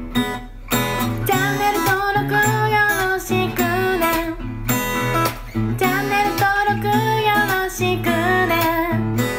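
Background music led by strummed acoustic guitar, with a bending melody line over a steady beat.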